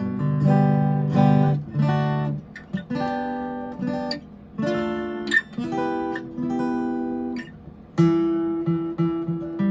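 Steel-string dreadnought acoustic guitar, a StewMac kit build of a pre-war 1937 Martin D-28, being played in chords: each chord is struck about once a second and left to ring.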